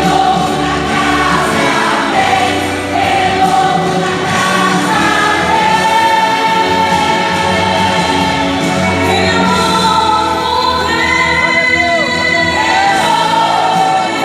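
Gospel worship music: a choir singing with a full band accompaniment.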